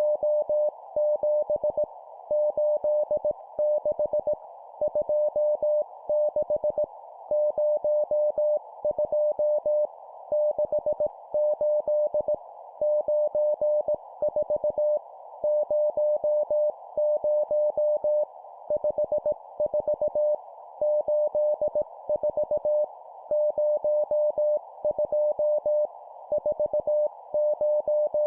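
Morse code (CW) tone near 600 Hz keyed at 17 words per minute, sending number groups as dits and dahs with short pauses between groups, over a steady narrow band of hiss.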